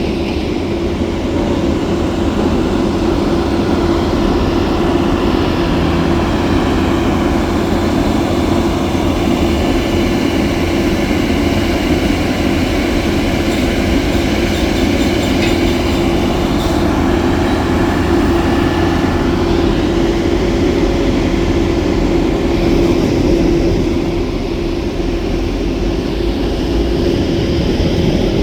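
Heavy asphalt-paving machinery running steadily: a deep rumble with a constant engine hum, and some higher whining tones in the middle.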